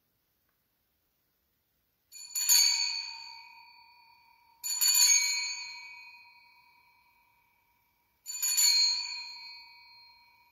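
Altar bells shaken three times, each a quick shake that rings on and fades over a couple of seconds, marking the elevation of the consecrated host at Mass.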